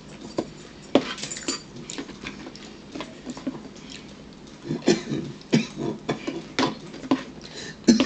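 A pet dog making short, irregular noises every second or two; she is getting mad.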